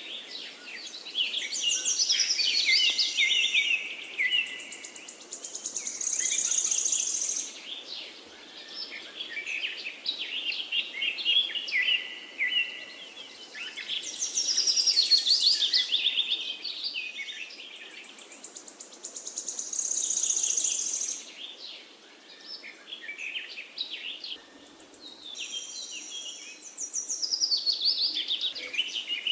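Several birds chirping and singing at once, a dense high-pitched chorus of short chirps and trills over a faint hiss. The same stretch of birdsong comes round again about every fourteen seconds, as in a looped recording.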